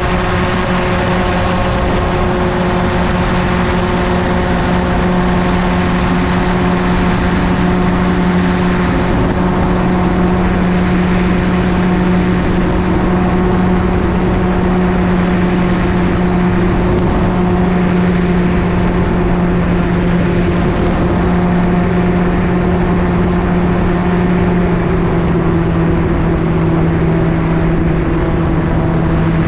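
Engine and pusher propeller of an MTOsport gyroplane running steadily in flight, with wind noise over the microphone. The engine note drops slightly a few seconds before the end.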